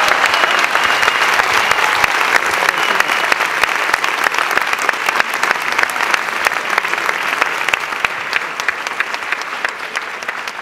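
Theatre audience applauding: dense, fast clapping that gradually thins and fades.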